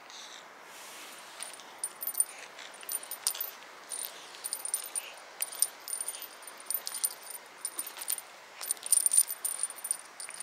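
Small metal objects jingling and clicking in irregular shakes, with a brief ringing on each hit and a quick flurry near the end.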